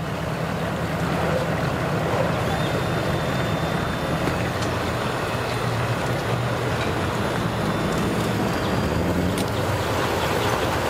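Bass boat's outboard motor running in gear as the boat is driven up onto its trailer, with water churning behind it. The engine's pitch rises near the end as it is throttled up to push the hull onto the trailer.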